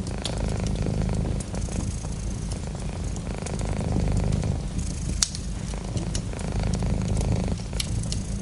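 A cat purring close up, a steady low purr that changes every couple of seconds with each breath in and out. Scattered sharp crackles of a wood fire run over it, with one louder pop about five seconds in.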